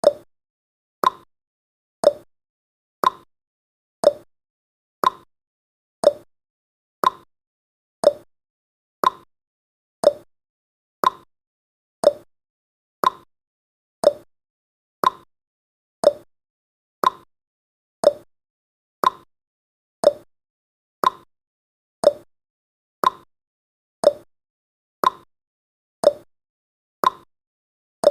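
Countdown timer's clock-style ticking sound effect, one short tick each second, alternating between a higher and a lower tock.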